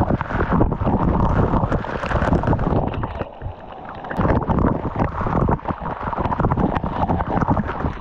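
Waterfall water rushing close by, with wind or spray buffeting the microphone. There is a brief lull about three seconds in.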